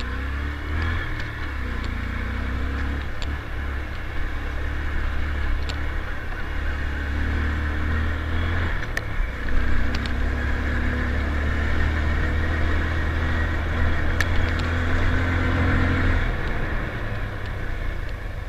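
Motorcycle engine running at a steady, low pace while riding, with a continuous rushing noise and a few sharp clicks.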